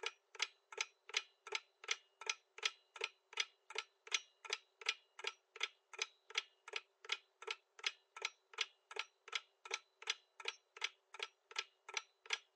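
Countdown-timer sound effect: even, clock-like ticks at a little over two a second, marking the time running out to answer.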